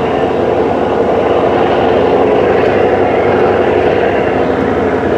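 A steady, loud mechanical drone with an even hum and no breaks or sudden changes.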